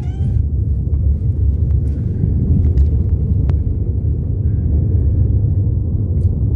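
Steady low rumble of a car on the move, road and tyre noise heard from inside the cabin.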